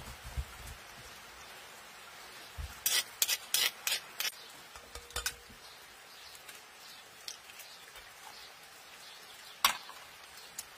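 Eggs being cracked against a metal spoon over a glass mixing bowl: sharp taps and clinks, a quick cluster about three seconds in, a couple more around five seconds and one near the end. Right at the start, a few low thuds of a stone crushing spices in a wooden bowl.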